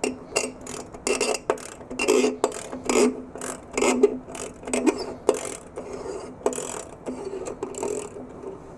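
A hand wrench turning a bolt out of the IBM z890 processor module's heavy metal backplate: quick metallic clicking and grinding strokes, two to three a second, that grow softer toward the end.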